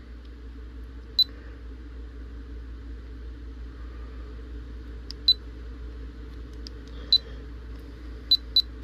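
Short high beeps from the W&O Q7 vlogging camera's buttons as its menu is stepped through: about five single beeps spread out, two in quick succession near the end, over a steady low hum.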